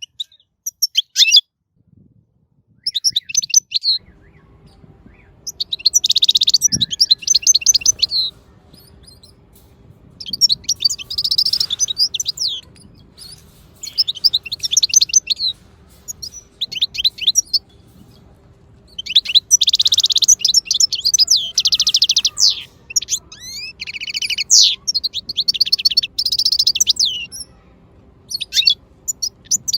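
Turquoise parrots (turquoisine) calling in repeated bursts of rapid, high chattering chirps, about ten bursts spread a few seconds apart, as a parent feeds its chicks. A faint steady hum sits underneath from about four seconds in.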